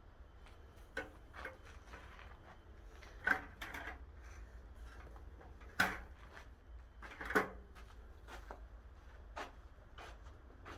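Scattered knocks and scrapes of wood and debris being handled during floor demolition, with three louder knocks among the quieter clatter.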